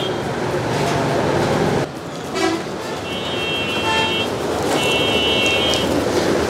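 Road traffic with vehicle horns honking: two high horn blasts about a second long each, around three and five seconds in, over a steady traffic rumble.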